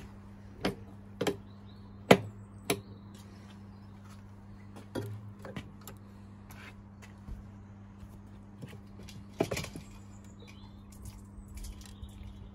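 Sharp clicks and knocks, about half a dozen, the loudest about two seconds in, from hands handling the outboard's plastic cowling and control buttons, over a faint steady low hum. The engine is not running.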